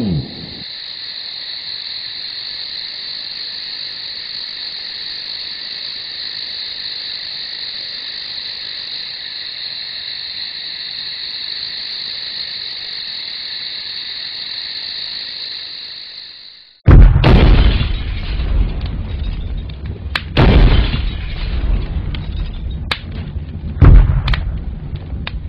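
Steady high insect chirring for about seventeen seconds. It cuts off suddenly and loud booms and crashes of an explosion follow, with more heavy hits about three and seven seconds later.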